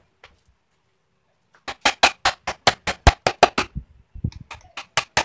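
Hammer striking the wooden frame of a sofa. A quick run of sharp blows, about six a second, starts nearly two seconds in, pauses briefly, then a second run follows.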